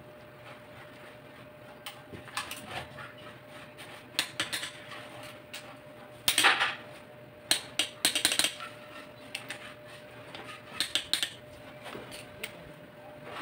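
Torque wrench and socket clinking and ratcheting on the steel cylinder head bolts as they are tightened and the socket is moved from bolt to bolt. The sound is a scattered series of short metallic clicks and clatters, the loudest a brief clatter about six seconds in.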